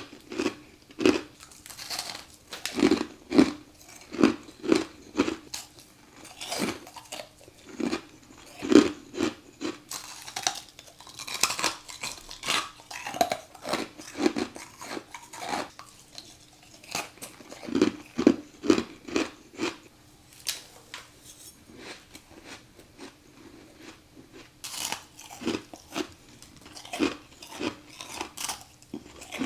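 A person chewing a mouthful of very crunchy humidifier frost close to the microphone: a steady run of sharp crunches about two a second, thickening into denser crunching about eleven seconds in and easing off briefly a little past the middle.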